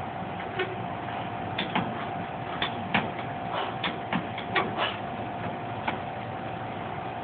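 Irregular clanks and knocks from a steel pull-up rig as a man swings through kipping pull-ups, about a dozen in all, most of them in the middle seconds. A steady mechanical hum runs underneath.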